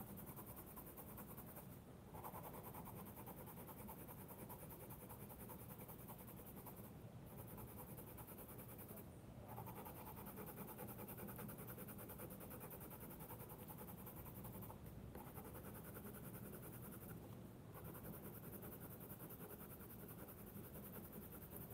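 Faint, continuous scratching of a cheap Navneet Youva colored pencil shading on thick Brustro sketchbook paper with light pressure, broken by a few short pauses between runs of strokes.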